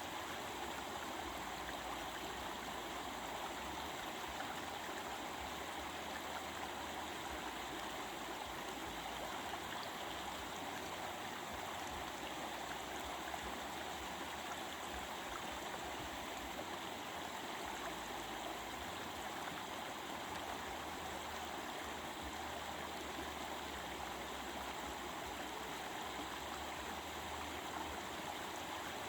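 Stream of water rushing and babbling steadily over rocks.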